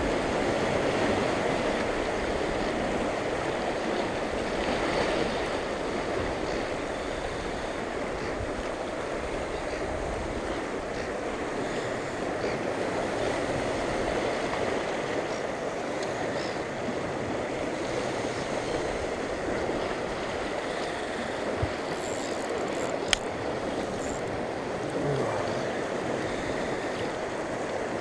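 Sea surf washing and churning around shoreline rocks, a steady rushing. A single sharp click sounds near the end.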